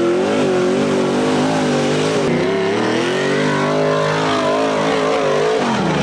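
A side-by-side UTV's engine running hard at high revs, its pitch wavering up and down as the throttle works. The revs drop off near the end.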